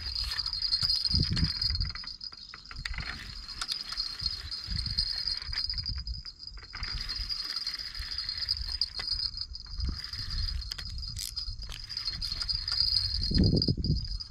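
Insects chirring steadily in a continuous high-pitched chorus, with low rumbling and a few short knocks underneath.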